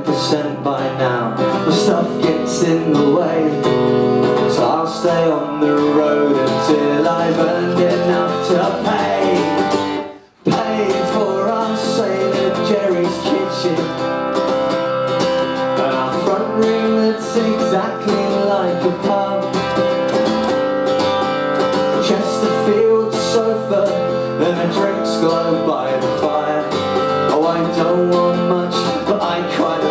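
Acoustic guitar strummed, playing a song, with a brief drop-out about ten seconds in.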